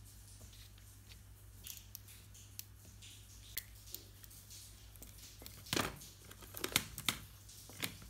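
Stethoscope being handled on a desk: wiped with a tissue, lifted and put down, giving scattered light clicks and taps, the sharpest cluster about six to seven seconds in, over a faint low hum.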